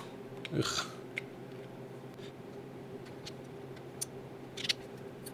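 A few scattered light metallic clicks of a spanner and screwdriver on a rocker-arm adjuster screw and locknut of a Triumph TR4 cylinder head, as the valve clearance is reset to ten thou with a feeler gauge. A brief rustle comes near the start, over a steady low hum.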